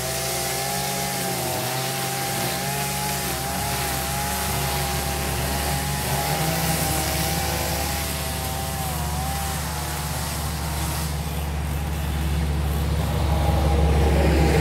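Small gasoline engine of lawn equipment running steadily at working speed, its pitch wavering slightly and getting a little louder near the end.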